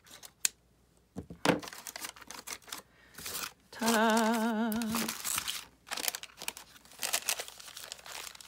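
A scissor snip through thread near the start, then brown kraft paper bag rustling and crinkling as it is opened out and pressed flat by hand. About four seconds in, a person hums one wavering note for about a second, the loudest sound.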